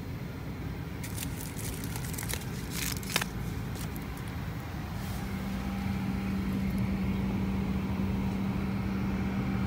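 Steady low background rumble of airport terminal noise. In the first few seconds a takeout bowl and fork are handled, giving a quick run of small clicks and rattles. From about halfway through, a steady low hum joins in.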